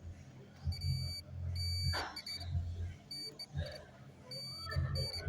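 Digital multimeter beeping in continuity mode, a high steady tone in about four short, broken bursts as the probes make and lose contact. The beep signals a short circuit (near-zero resistance) on the motherboard rail being probed. A low steady hum sits underneath.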